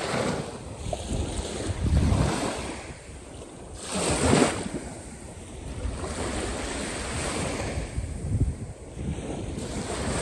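Caspian Sea waves breaking and washing, with wind rumbling on the microphone. The wash swells and falls, with louder breaks about two seconds in and about four seconds in.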